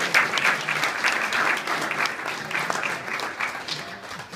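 A small group of people applauding, the clapping thinning out and fading away near the end.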